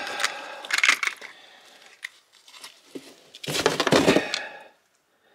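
Frozen, frost-covered ide being laid back onto a pile of frozen fish in a container. There are two bursts of handling noise, one at the start and a louder one about three and a half seconds in.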